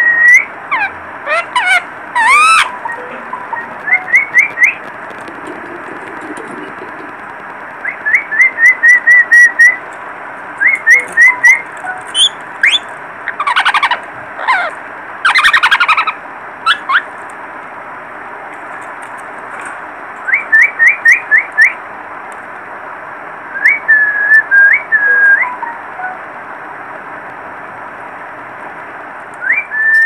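Yellow (lutino) ringneck parakeets calling: groups of three to eight quick, high chirps in a row, repeated throughout, with a few louder, harsher squawks about halfway through. A steady hiss runs underneath.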